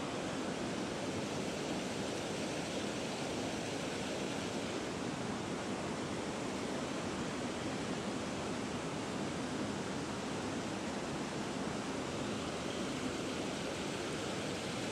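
Fast, shallow stream water rushing over rocks, a steady even hiss.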